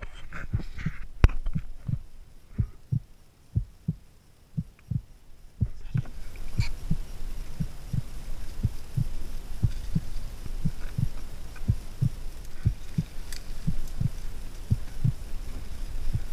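A run of dull, low thumps, uneven at first and then about two to three a second, with a steady hiss coming in about six seconds in.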